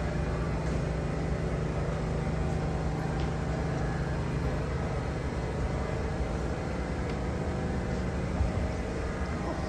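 Steady low hum of a subway train standing in the station with its doors open, heard over the general noise of the underground station.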